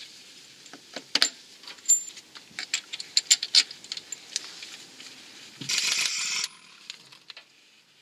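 Light metallic clicks and clinks as a car's crankshaft pulley is handled and slid onto the crankshaft nose by hand, with a short rushing noise about six seconds in.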